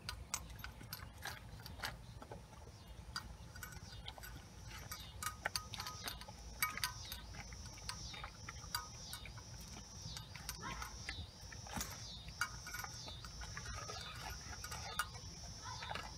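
A dog eating kibble from a stainless steel bowl: irregular crunching and sharp clinks of teeth and food against the metal. A high, pulsing chirp repeats in the background from about six seconds in.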